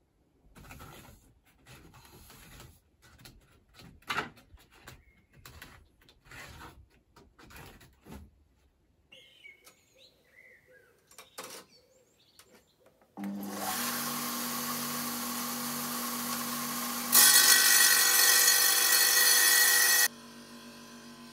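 Benchtop table saw: scattered knocks and clicks, then the motor starts abruptly partway through and runs with a steady whine. It grows much louder and harsher for about three seconds as the blade cuts, then drops sharply to a quieter steady hum near the end.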